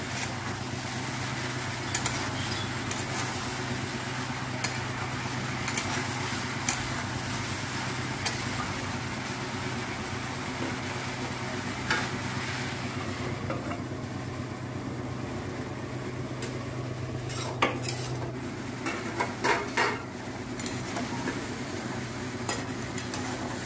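Chopped eggplant, pumpkin and drumstick pieces sizzling in a kadai while a metal spatula stirs and scrapes them, with a few sharper knocks of the spatula on the pan.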